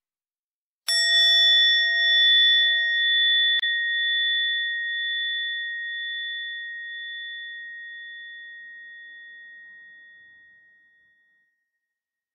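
A meditation bell, the mindfulness bell, struck once about a second in and ringing on, slowly fading away over about ten seconds; a bell of this kind is a call to stop and come back to the breath. A small click sounds about three and a half seconds in.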